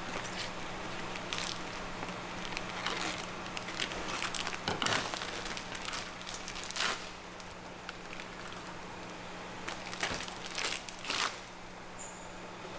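Food-preparation clatter: irregular clicks, knocks and scrapes of utensils, with a steady low hum underneath.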